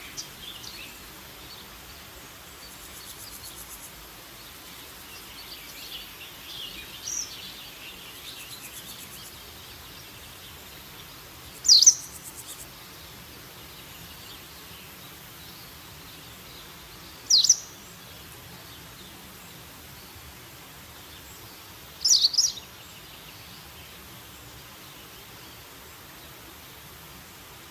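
Woodland birds calling over a steady background hiss. Scattered faint chirps come first, then three loud short calls sweeping downward about five seconds apart, the last a quick double.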